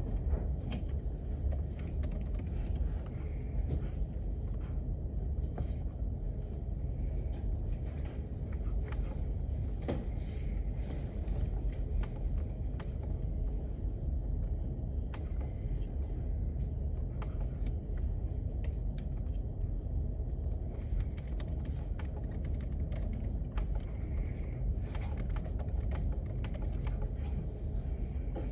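Typing on a computer keyboard: quick, irregular key clicks over the steady low hum of a library room.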